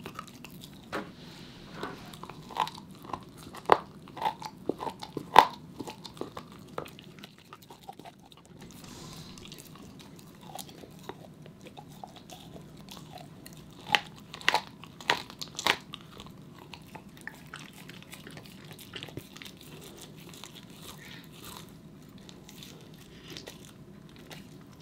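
A corgi gnawing on a raw bone: sharp crunching cracks of teeth on bone, a run of them in the first few seconds and another around the middle, with quieter chewing clicks between.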